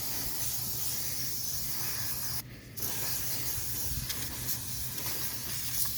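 Can of compressed-gas electronics duster spraying in a steady hiss, with a brief break about two and a half seconds in before the spray starts again.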